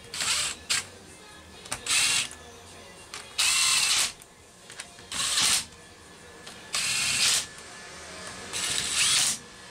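Cordless drill/driver running in about seven short bursts of under a second each, driving the screws of a chainsaw's cover. The last burst winds up in pitch.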